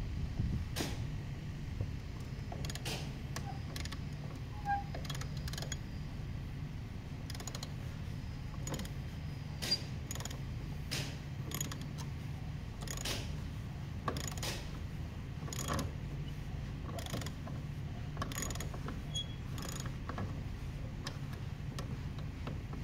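Hand ratchet wrench clicking as it is worked on the bolts of a jet ski's jet pump, sharp single clicks about once a second at an uneven pace. A steady low hum runs underneath.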